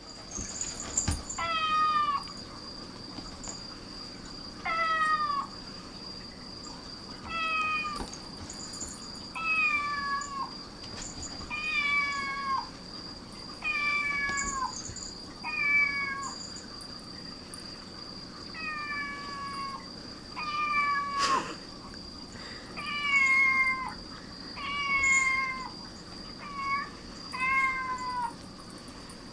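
Cat meowing over and over, about thirteen meows each roughly half a second to a second long and falling in pitch at the end, spaced about two seconds apart. A faint steady high-pitched whine runs underneath, and there is one sharp click a little past two-thirds of the way through.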